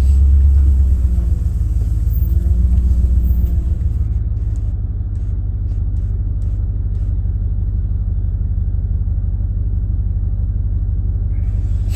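Vehicle engine idling: a steady low rumble with fast even pulses, louder for the first few seconds, then settling.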